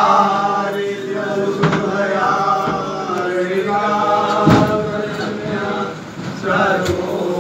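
Devotional chanting by worshippers in a Hindu temple shrine, voices holding long, steady notes. A few sharp knocks cut through it, the loudest about four and a half seconds in.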